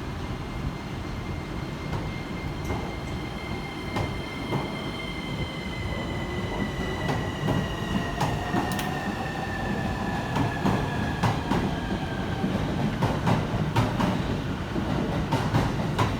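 Electric commuter train pulling out of the station and picking up speed, its traction motors whining and the wheels clicking over rail joints more and more often as the sound grows louder.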